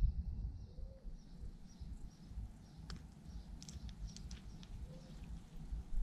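Faint high chirps of small songbirds over a low, uneven outdoor rumble, with a short run of sharp ticks about three to four seconds in.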